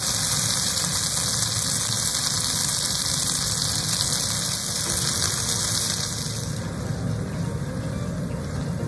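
Diced chicken pieces sizzling in a hot frying pan. The hiss eases about six and a half seconds in.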